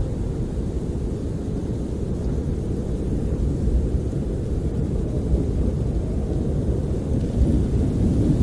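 Snowstorm wind blowing as a steady deep rumble, swelling a little near the end.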